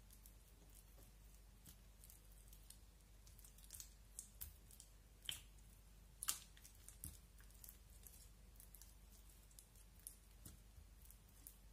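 Blue glitter slime and clear slime pressed and kneaded by hand on a glass plate: faint sticky squishes with scattered small pops and clicks, the loudest about six seconds in.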